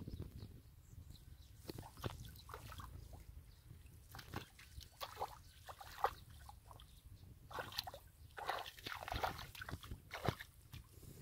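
Hands digging into wet mud and bare feet stepping through it: irregular wet squelches and slaps, coming thicker in the second half.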